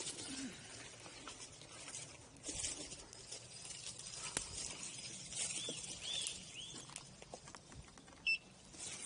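Footsteps and a rolled electric unicycle's tyre crackling and rustling over dry leaves and twigs, with scattered twig snaps. A bird calls three times midway, and a short, loud high tone sounds near the end.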